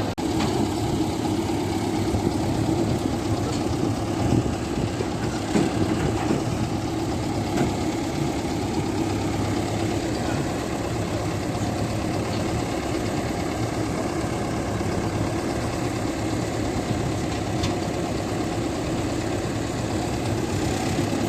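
Diesel engine of a Niva SK-5 combine harvester running steadily, with a few faint clicks over the hum.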